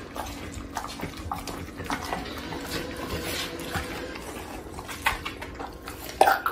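Pit bull-type dog chewing raw chicken, with wet smacking mouth sounds and irregular clicks. A louder sharp crack comes about six seconds in.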